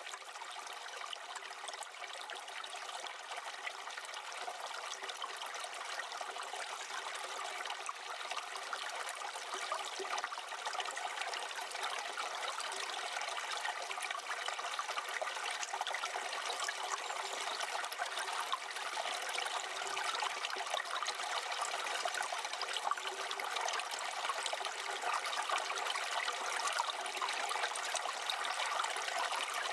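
Small wood fire burning, a steady hiss thick with fine crackles and pops that grows slightly louder over the half minute.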